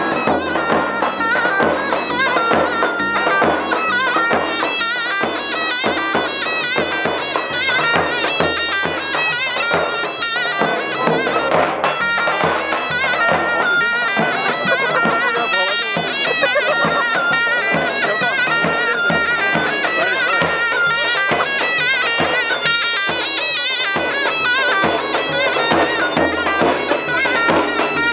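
Turkish folk dance music: a shrill wind instrument playing a continuous melody over a steady drum beat.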